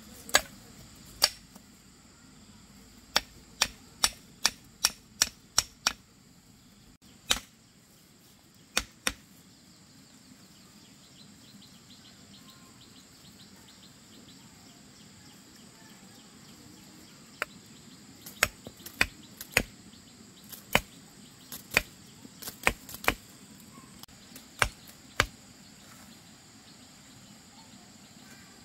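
Sharp knocks and snaps of a machete and sticks being worked: a few single strikes, then quick runs of several a second, with a long pause midway. A steady high-pitched insect drone runs beneath.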